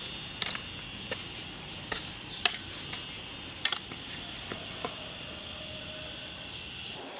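Sharp knocks at irregular intervals, roughly one a second, over a steady high-pitched insect drone.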